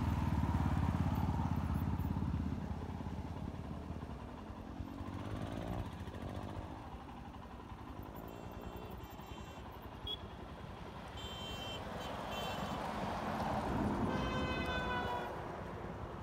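A sport motorcycle's engine fading as the bike rides off after passing close by, leaving distant road traffic that swells again later. A few short high-pitched tones sound near the middle and toward the end.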